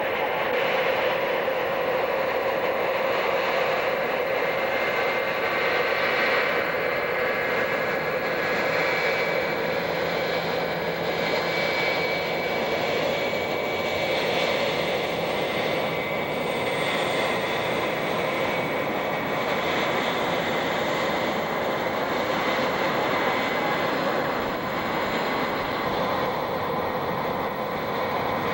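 Boeing 707's jet engines running as the four-engine airliner taxis close by: a steady rushing noise with a faint high whine.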